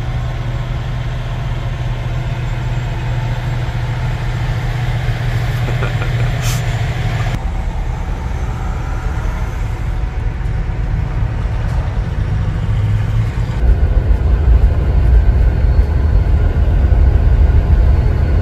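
Semi truck's diesel engine running, heard from inside the cab as a steady low rumble. The sound changes abruptly twice and is loudest over the last few seconds, when the truck is out on the highway.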